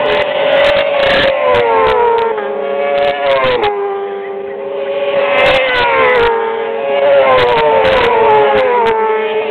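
A pack of racing motorcycles passing through a corner, their engine notes dropping in pitch in steps as they brake and change down. The pitch climbs again about five seconds in, then falls in steps once more near the end.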